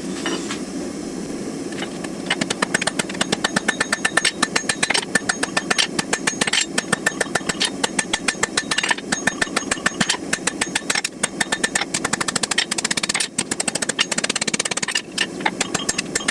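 Hand hammer striking a hot steel knife blank on an anvil in quick, evenly spaced blows, starting about two seconds in, with a couple of brief pauses, as the blade is forged to shape. A steady rushing noise runs underneath.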